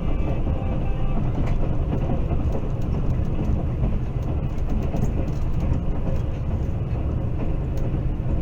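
A moving train running steadily: a continuous low rumble of wheels on the rails with a few faint clicks.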